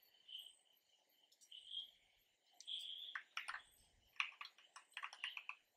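Faint clicking of a computer keyboard: a quick run of keystrokes in the second half, with a few scattered clicks before it.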